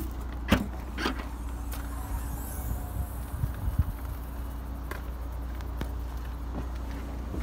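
Vauxhall Corsa hatchback tailgate being lifted open, with two sharp clicks about half a second and a second in and a few lighter knocks later, over a steady low rumble.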